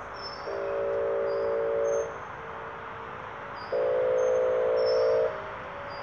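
Whelen WPS 2810 outdoor tornado warning siren sounding its steady alert tone, a chord of several unchanging pitches. It swells louder twice, for about a second and a half each time, as the rotating speaker head turns toward the listener, and falls back to a fainter single tone in between.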